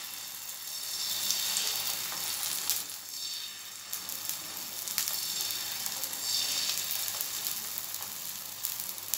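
Thin flour pancake batter sizzling in a hot oiled frying pan while the back of a spoon spreads it out. The sizzle swells and fades a few times, with a few light clicks.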